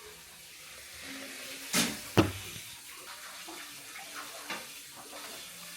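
Wet chewing and mouth noises from eating frozen wax candy, with a couple of sharp crunchy clicks about two seconds in.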